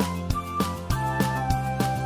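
Background music with a steady beat, about three beats a second, and melody notes.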